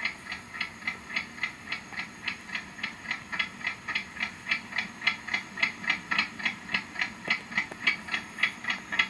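Steady, rapid ticking, about four to five even ticks a second.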